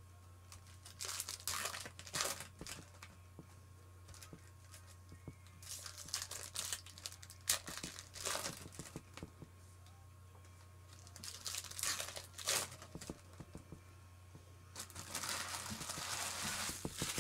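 Foil trading-card pack wrappers crinkling and tearing as packs are ripped open by hand, in several bursts with short pauses between them. A steady low hum runs underneath.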